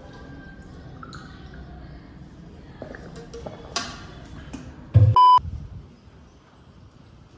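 A short, loud electronic beep, one steady high tone lasting about a fifth of a second, a little after five seconds in, just after a dull thump. Before it there are only faint handling noises and a couple of clicks.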